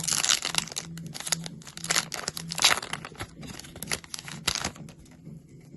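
A foil Pokémon card booster pack being torn open and crinkled: a run of irregular tearing and crinkling that dies down near the end.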